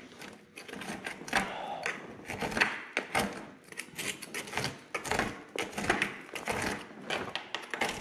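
A thin metal tool scraping and picking at packed dirt and rust in the hole worn through the bottom of an excavator's dozer blade, making quick, irregular clicks and scratches. The hole was worn into the blade because its cutting edge had worn away completely.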